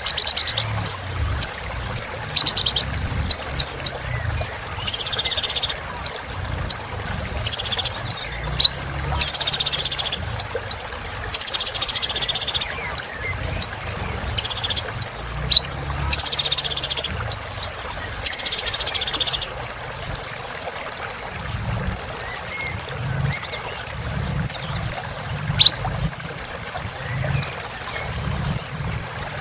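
A kolibri ninja (brown-throated sunbird) singing vigorously: short, sharp, high whistled notes, quick runs of repeated notes, and buzzy rattling phrases of about a second, following one another without pause.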